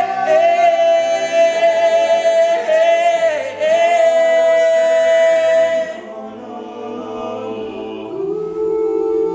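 Male a cappella group singing: a lead voice holds a long high note over the group's sustained vocal chords. About six seconds in the lead drops out and the backing chords go on more softly, then swell louder again about eight seconds in.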